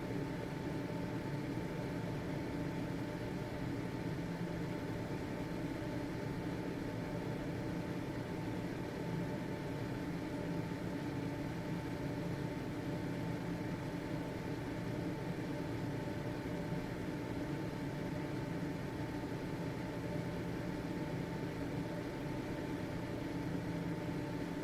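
Household ventilation fan's motor running steadily: an even whir of moving air with a constant hum that has a few fixed tones in it.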